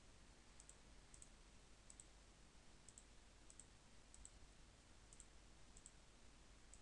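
Faint computer mouse clicks, about nine light clicks spaced roughly a second apart, some in quick pairs, over near-silent room tone.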